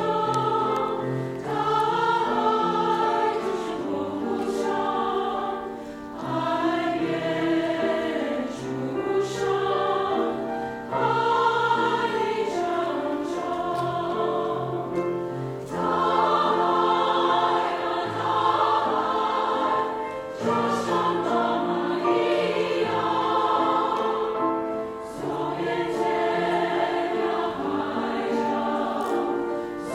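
Large mixed choir singing in sustained harmony with grand piano accompaniment, in long phrases that break for a breath every few seconds.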